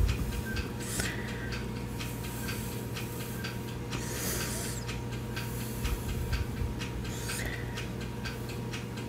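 Steady, regular ticking, several ticks a second, over a low electrical hum. A few brief rustles, about a second in, around four seconds and near seven and a half seconds, come from the cat's fur brushing against the phone.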